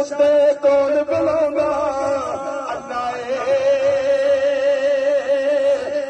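A man singing a naat, a devotional song in praise of the Prophet, into a microphone with a wavering, ornamented melody over a steady held drone.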